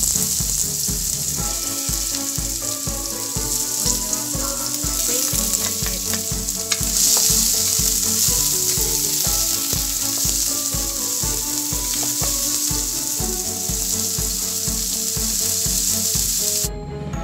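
Diced onions sizzling as they fry in a steel wok, stirred with a wooden spatula. Background music with a steady beat plays under the sizzle, and the sizzle cuts off suddenly just before the end.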